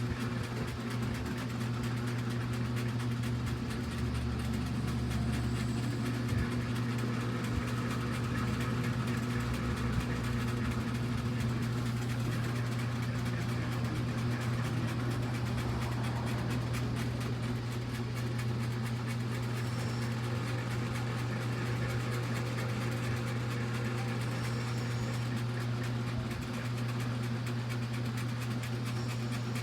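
A steady low machine hum that holds the same pitch and level throughout.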